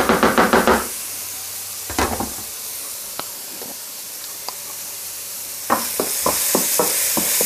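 A wooden spoon stirring a thick simmering sauce in a pan for the first second. Then sliced button mushrooms fry in a hot wok, with a sizzle that grows louder over the last couple of seconds, and the wooden spoon scrapes and knocks against the pan as they are stirred.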